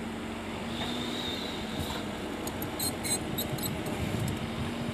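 JCB JS140 tracked excavator's diesel engine running steadily as the machine moves on its tracks, a dense low rumble with a steady hum. A cluster of short, high squeaks comes about halfway through.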